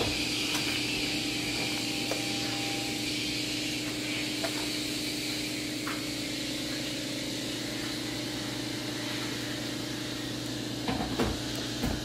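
A steady machine hum and hiss that holds even throughout, with a few light taps near the end.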